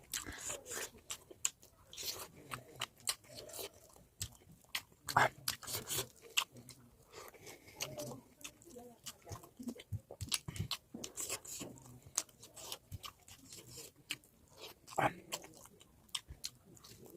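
A person chewing and biting into pork close to the microphone: many short, irregular crunches and wet mouth clicks.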